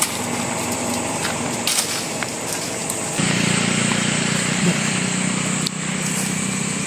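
A small engine comes in about three seconds in and runs steadily, after a few light knocks.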